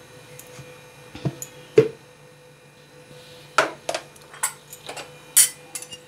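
Irregular clicks and knocks of a mixer-grinder's plastic lid being taken off and its steel jar being handled, about nine in all, the sharpest a little under two seconds in, over a faint steady hum.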